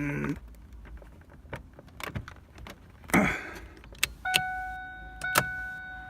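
Scattered plastic clicks and knocks of a headlight switch knob being pushed onto its rod, then a car's warning chime dinging twice, about a second apart, each ding ringing out and fading.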